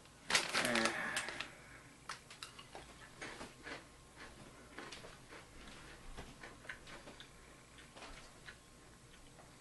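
A foil snack bag crinkles briefly about half a second in as a hand digs into it, then faint, irregular crunching clicks follow as Goldfish crackers are chewed.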